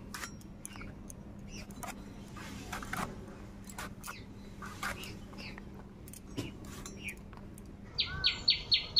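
Small brinjals being sliced into rounds on a boti blade: a series of short, irregular cutting clicks. Near the end, a bird calls in a quick run of about five chirps.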